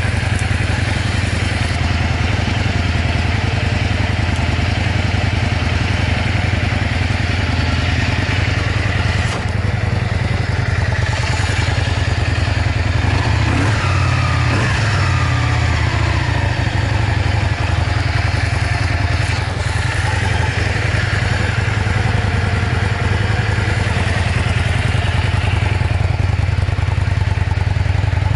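Yamaha Drag Star 400 Classic's air-cooled V-twin idling steadily, running with no abnormal noises.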